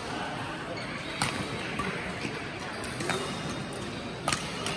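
Badminton rally: a shuttlecock struck back and forth by rackets, three sharp hits roughly a second and a half apart, in a large hall.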